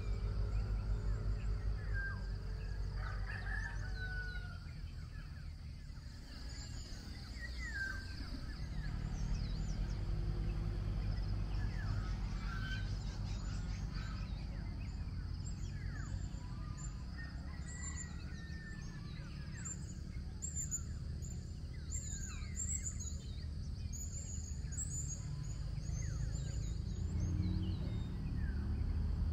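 Wild birds calling and chirping, many short rising and falling notes, thickest in the second half, over a steady low rumble.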